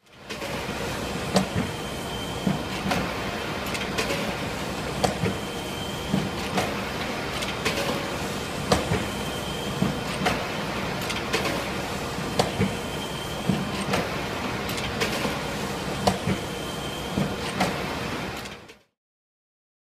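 Automatic screen printing press running steadily, with sharp clunks recurring about once a second, often two in quick succession.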